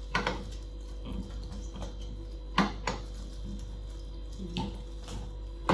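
Gloved hand wiping a wet salt, vinegar and lemon cleaning solution across a stainless steel gas stovetop. It comes as a few short, sharp wet strokes, the loudest near the end.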